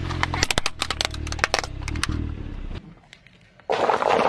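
A car tyre rolling over a plastic crocodile-dentist toy: a quick run of sharp plastic cracks and snaps over a low hum from the car, lasting about two seconds. Near the end, paper cups crumple under the tyre with a loud rustling crunch.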